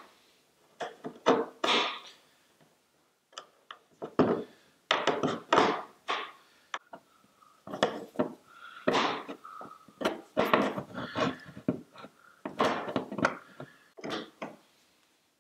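Pliers gripping and twisting a screw in a wooden workbench top: a run of irregular knocks and clicks of metal tools against wood and the pliers' jaws on the screw, with short pauses between.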